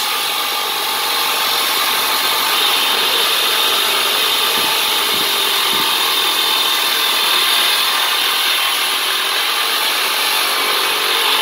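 Hilti DCH 300 hand-held electric diamond cutter running steadily, its 305 mm diamond blade grinding dry through a concrete block.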